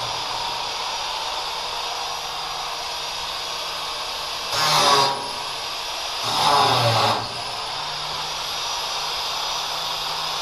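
A handheld power tool, such as a cordless drill-driver, run in two short bursts of about a second each, driving fasteners on the flail mower's steel shipping crate, over a steady background noise.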